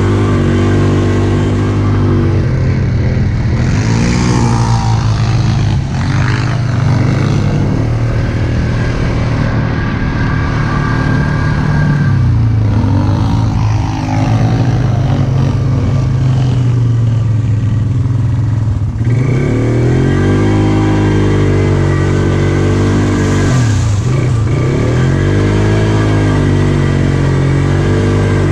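ATV engine running under throttle on a muddy trail, its pitch rising and falling several times as the rider gets on and off the gas, with the swings strongest in the last third.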